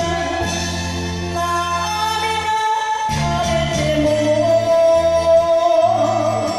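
A woman singing an enka ballad into a microphone over a karaoke backing track. She holds a long note with vibrato from about four seconds in.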